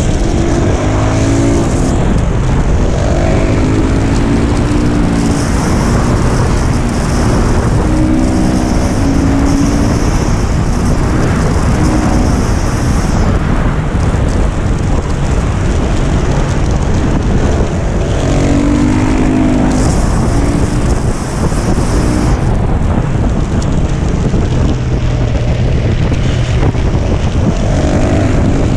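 KTM 690 SMC R's single-cylinder engine at full lap pace, its pitch rising and falling again and again as it is run up through the revs and shifted, under heavy wind rush on the onboard microphone.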